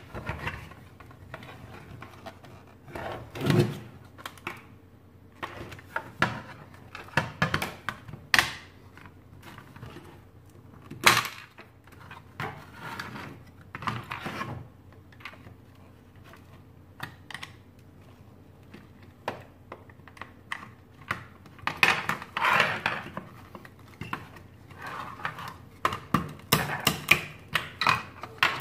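Hands handling and unscrewing the plastic back plate and mounting bracket of a small solar panel: scattered clicks, taps and knocks of plastic parts and a screwdriver, busier near the end.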